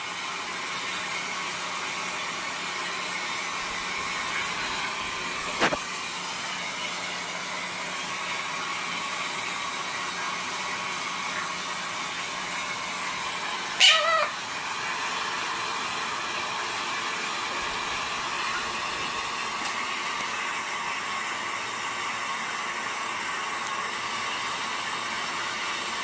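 Blue quaker parrot (monk parakeet) giving one short, loud squawk about 14 seconds in, over a steady background hiss. A single sharp click sounds about six seconds in.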